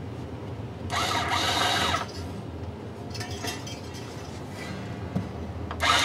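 Cordless driver with a string-winder bit spinning a guitar tuning peg, winding a plain string onto the post in short bursts: a run of about a second near the start, fainter spurts in the middle, and another brief burst at the end.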